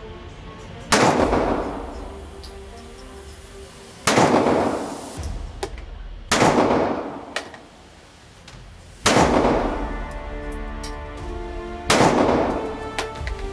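Five semi-automatic pistol shots fired one at a time, two to three seconds apart, each followed by an echoing tail, with background music underneath.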